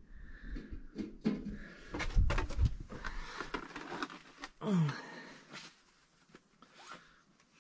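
Footsteps crunching and scraping on loose rock and rubble, with irregular knocks and a low rumble of camera handling loudest two to three seconds in. About five seconds in, a short sound falls in pitch, then the steps go quieter.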